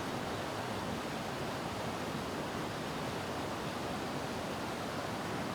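Minnehaha Falls' falling water, a steady, even rushing.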